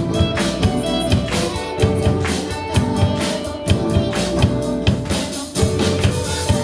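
Live rock band playing: drum kit hitting a steady beat under electric guitars, heard from among the audience in a small club.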